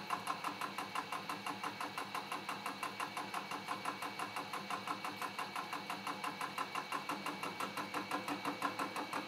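A fly cutter's insert on a Rockwell milling machine is taking an interrupted face cut in a steel block. The insert strikes the work once each turn, giving an even, rapid ticking of about six a second over the steady run of the machine.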